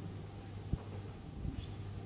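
Round cutter pressed through buttered bread slices onto a plastic chopping board: a short dull thump under a second in and a fainter one a little later, over a steady low hum.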